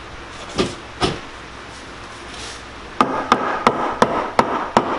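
Two knocks as a wooden sill board is set into a framed window opening, then from about three seconds in a hammer tapping it into place, about three blows a second.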